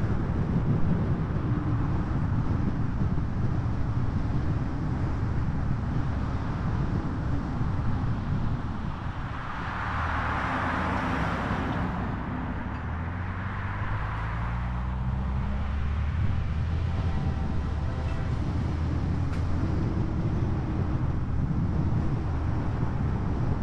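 Vehicle noise: a steady low rumble, with a hiss that swells and fades about ten seconds in and an engine note rising in pitch just after, then holding steady.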